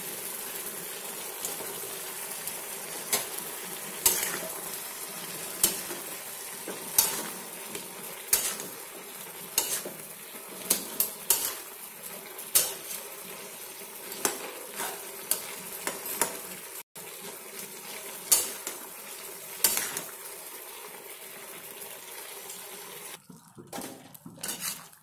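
Chicken keema with green peas and chopped tomato sizzling steadily in a metal pan while being sautéed. A metal spatula stirs it, clicking and scraping against the pan every second or so. The sizzling drops away near the end.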